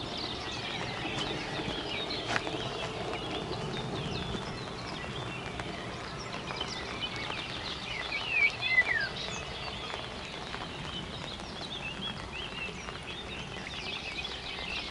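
Birds chirping and singing at dawn, with many short calls throughout and a louder burst of calls about eight seconds in, over a steady faint patter of light rain.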